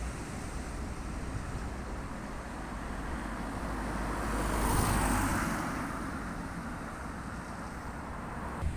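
A road vehicle passing by over steady traffic rumble: it grows louder to a peak about halfway through, then fades away.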